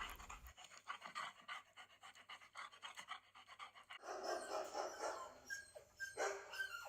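A dog panting quickly, faint and rapid breaths in a steady run, with a few short whine-like sounds in the second half.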